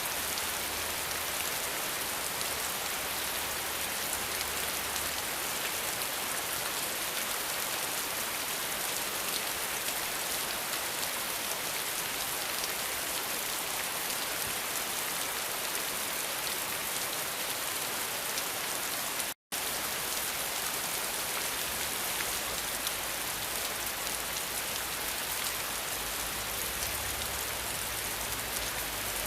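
Steady rain falling, an even hiss of many drops, which cuts out to silence for a split second about nineteen seconds in.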